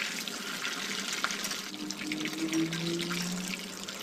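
Hot oil sizzling steadily in a wok as a whole deep-fried tilapia is lifted out, with light clicks of the metal spatula and wire strainer against the pan.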